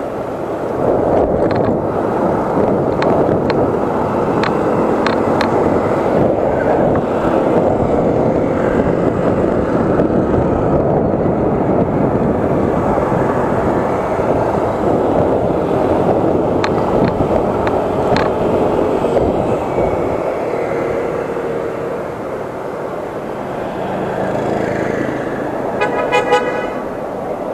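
Steady rush of wind and road noise from riding an electric scooter through city traffic, with a few short clicks along the way. A vehicle horn toots briefly near the end.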